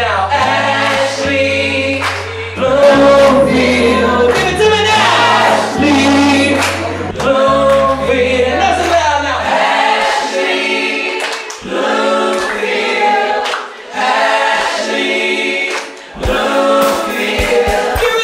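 A singer performing a song live into a handheld microphone, with musical accompaniment; the low bass notes drop out about halfway through.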